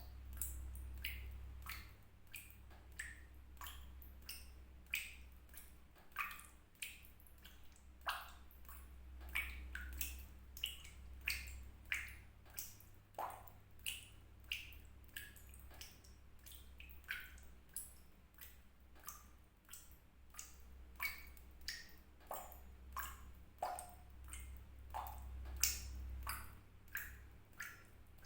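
Water drops falling one by one into water, an irregular run of short pitched plinks, about one or two a second, over a low steady hum.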